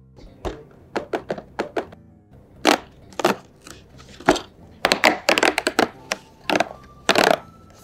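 Cardboard toy box being opened by hand: a string of short taps, clicks and scrapes as the flap is pried open and the lid card slid out, with a longer cardboard scrape near the end.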